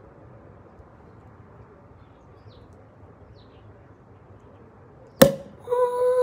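Cork popping out of a bottle of sparkling wine, eased out under a towel: one sharp pop about five seconds in, followed by a long held cheer from the woman who opened it. Before the pop, faint bird chirps over a low background.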